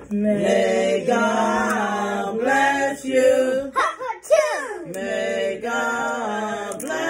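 Several voices singing together in long held notes, with a short break and a sliding voice about halfway through.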